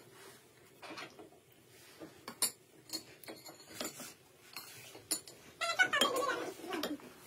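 Forks clinking and scraping on ceramic plates, a few separate clicks spread out, as cake is eaten. Near the end a child's voice is heard briefly.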